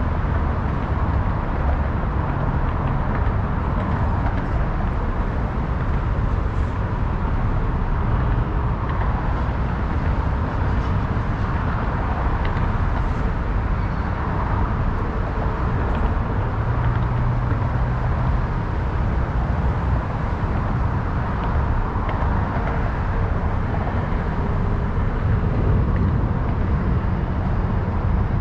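Steady city traffic ambience: a continuous low rumble of passing road vehicles with no breaks.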